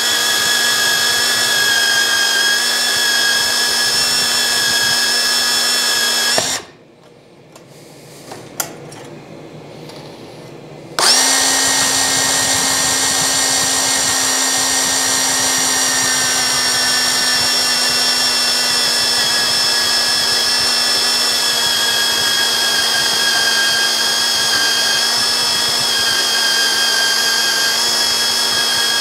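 Milwaukee M18 cordless portable band saw cutting through a metal bar clamped in a vise, a steady motor and blade whine. It stops about six seconds in, then starts again about four seconds later and keeps cutting.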